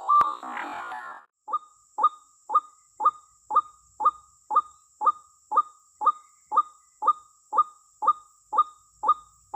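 White-breasted waterhen (ruak-ruak) lure call, the female's calling recording used to draw in males: one short sharp call repeated evenly about twice a second, starting about a second and a half in. Before it, the tail of the intro music cuts off.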